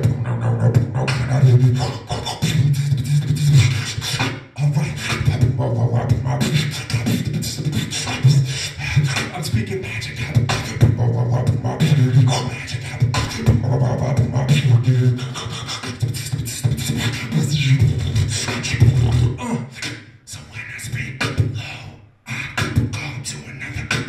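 Beatboxing into a handheld microphone: a fast, steady beat of vocal kick, snare and hi-hat sounds over a low hummed bass tone. The beat breaks off briefly twice near the end.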